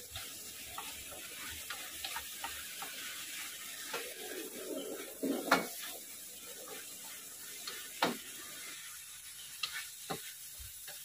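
Shrimp in sweet chili sauce sizzling in a wok over a gas flame while a spatula stirs and scrapes, with sharp clicks and knocks of the spatula against the wok. The loudest knocks come about halfway through and again a few seconds later.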